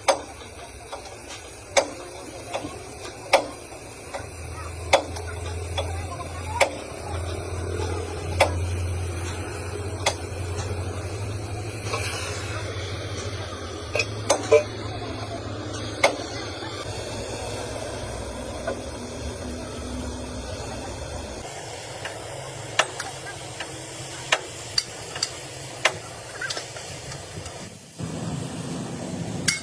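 Sharp metal knocks, about one every second and a half, over a steady low machine hum. The hum cuts off about two-thirds of the way through, and after that the knocks come lighter, quicker and less even.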